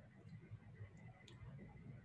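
Near silence: faint room hum over a call's open microphone, with a few faint clicks.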